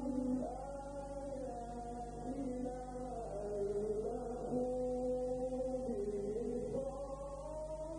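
A male Quran reciter in melodic tajweed recitation, drawing out long sustained notes that glide up and down in pitch. A steady low electrical hum runs underneath.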